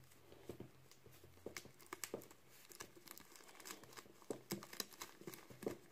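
Faint rustling and scattered soft clicks as a fabric bag filled with weighting beads is handled and knotted shut so the beads cannot come out.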